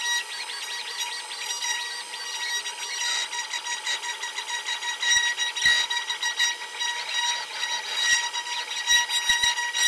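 CNC router spindle whining at a steady high pitch while a pointed engraving bit cuts into an oak board. Wavering tones from the stepper motors rise and fall as the head moves, over a hiss of cutting, with a few light knocks in the second half.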